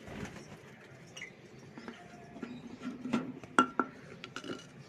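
A scatter of light clinks and clicks of small hard objects, the sharpest two close together about three and a half seconds in.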